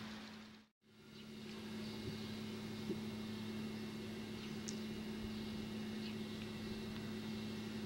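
Steady low hum under an even hiss, as on an old camcorder tape, with a few faint high ticks; the sound cuts out briefly about a second in.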